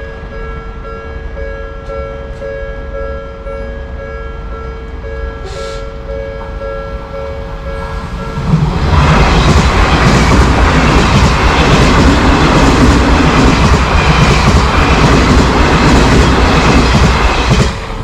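Japanese level-crossing alarm ringing with steady alternating two-tone chimes. About eight and a half seconds in, an Odakyu Line train passes through the crossing, and its loud wheel-on-rail rumble and clatter over the rail joints drowns the bell for about nine seconds before cutting off just before the end.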